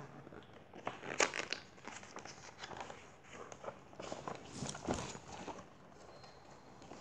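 Pages of a large picture book being turned and handled: paper rustling, with a few short sharp flicks about a second in and again around four to five seconds in.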